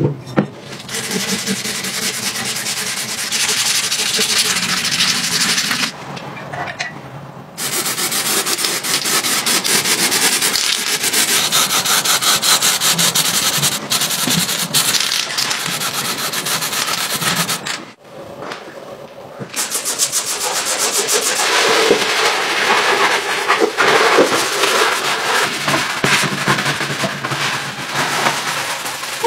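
Abrasive sanding of the pocket bike's bare metal wheel rims: a dense, rough rasping in long stretches, with two short pauses about six and eighteen seconds in.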